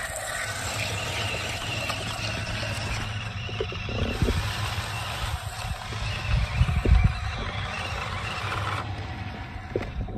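Small electric motors and gearboxes of toy RC trucks running as their wheels churn and tow through sand, a steady hiss over a low rumble with a few knocks; the higher hiss drops away near the end.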